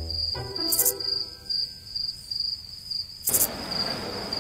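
Cricket chirping sound effect: a high, rapid pulsing chirp, about three to four pulses a second, that cuts off suddenly. It is the comic cue for an awkward silence.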